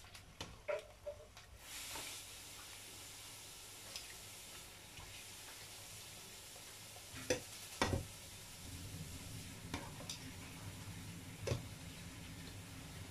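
Split dried fish (daing) sizzling in hot oil in a nonstick frying pan, a steady hiss. Metal tongs click against the pan and fish several times as the pieces are turned, most sharply about two-thirds of the way through.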